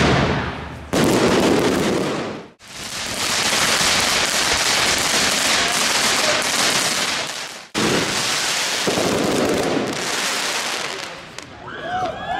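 New Year's Eve consumer fireworks going off close by: dense crackling and hissing, broken off abruptly a few times. Near the end the crackle eases and whistling rockets start to rise.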